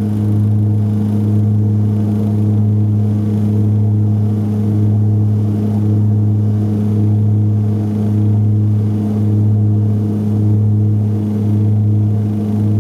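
The BAe Jetstream 31's Garrett TPE331 turboprops and propellers drone steadily at climb power, heard from inside the cabin. The drone throbs in a slow regular swell about once a second, the beat of the two propellers turning at slightly different speeds.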